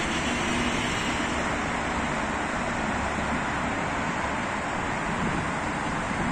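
Steady hum of road traffic on a wide multi-lane city road, an even rushing noise with no single vehicle standing out.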